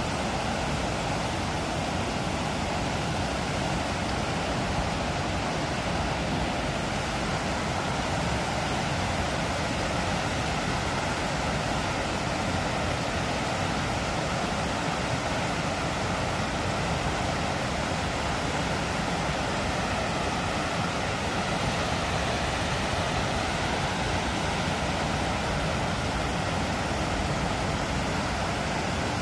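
Steady rush of water pouring over a small concrete spillway into the pool below.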